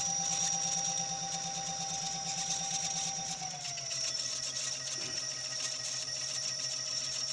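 Hoverboard hub motor spinning a rewired three-phase washing machine motor: a steady electric hum with a thin high whine, not real loud. Its middle tone drops slightly in pitch about three and a half seconds in.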